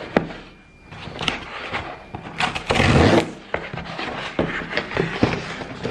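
Cardboard mailer envelope being torn open by hand: a loud rip of about a second near the middle, with scraping, crackling and clicking of the cardboard around it.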